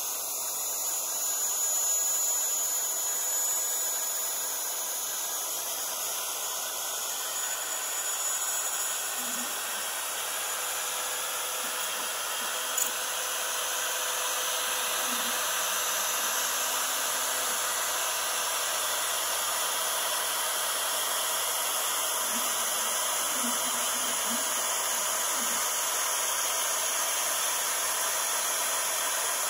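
X-Carve desktop CNC router spindle running steadily while a 1/8-inch end mill cuts a contour through 2 mm aluminium sheet, an even high hiss. One sharp click a little before halfway.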